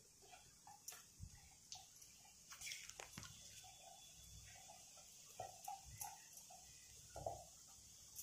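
Faint crackling and popping of beetroot puris deep-frying in hot oil in an iron kadhai: scattered small ticks and pops over a low hiss, close to silence.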